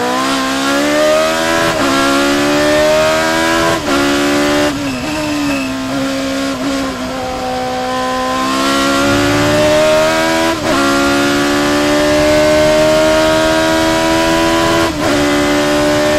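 Lotus 87B Formula 1 car's 3-litre Cosworth V8, heard onboard at full throttle: the revs climb in a rising pitch, broken by brief cuts at the gear changes about 2, 4, 10½ and 15 seconds in. Through the middle the note holds lower and steadier before it pulls up again.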